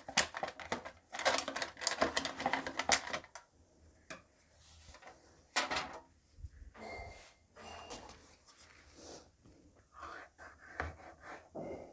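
Silicone pastry brush working oil over the inside of a thin aluminium foil tray: rapid crinkling and clicking of the foil for about three seconds, then only occasional soft taps and scrapes, with batter being scooped from a steel bowl near the end.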